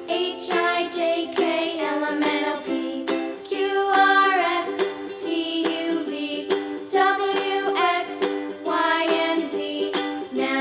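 Cheerful children's background music, a melody of plucked string notes over a steady accompaniment.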